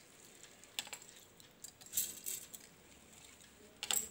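Soaked rice being pushed off a steel plate into a stainless-steel mixer-grinder jar: grains falling into the jar and the plate clinking against its rim, in a few short rattly bursts, the loudest near the end.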